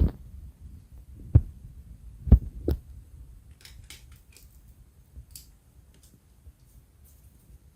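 Handling noises while opening a laptop's underside: three sharp knocks in the first few seconds, then faint small clicks, over a steady low rumble.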